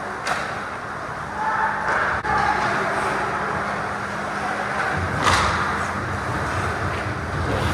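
Ice hockey play: skates scraping the ice and sharp clacks of sticks and puck, with the loudest knock about five seconds in, over a steady low hum and faint player shouts.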